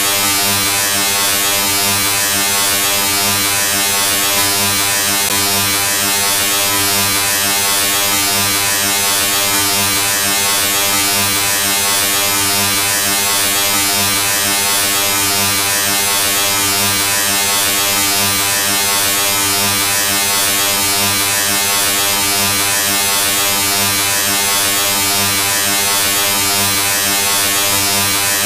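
Steady electric buzz: a low, even hum with a loud hiss over it, unchanging throughout.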